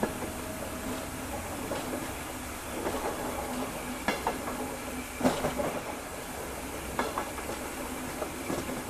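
H0-scale model train running on the layout's track: a steady low hum with a few sharp clicks over the rail joints, the loudest about five seconds in.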